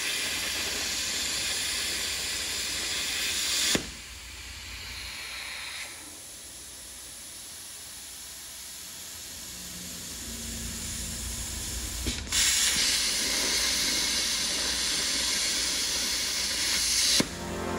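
Plasma cutting machine cutting steel plate: a loud steady hiss that stops about four seconds in, then a quieter hiss while the torch is not cutting. A little past halfway the hiss comes back loud with a click as the torch starts a second cut, and it stops again just before the end.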